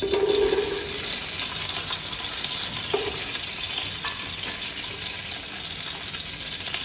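Cut red onion and whole red chillies dropped into hot oil in a metal pot, sizzling. The sizzle starts sharply as they hit the oil, is a little louder for the first second, then holds steady.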